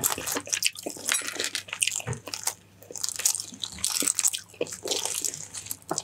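A person chewing balut, a boiled duck embryo, close to the microphone: wet, crunchy chewing with many small clicks and smacks.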